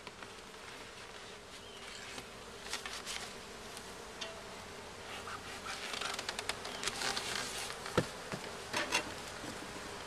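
Honey bees buzzing steadily around an opened wooden hive, with scattered clicks and knocks, most of them in the second half and the sharpest about eight seconds in.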